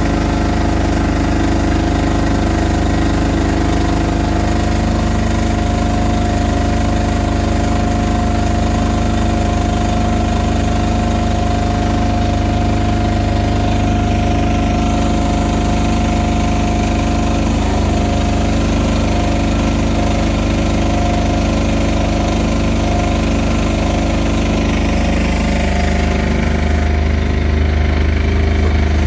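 Engine-driven paddle mortar mixer running steadily as it churns a batch of hempcrete. The low drone grows stronger near the end.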